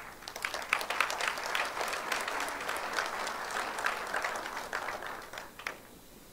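Audience applauding: a dense spread of claps that thins out after about five seconds, ending on a last clap or two.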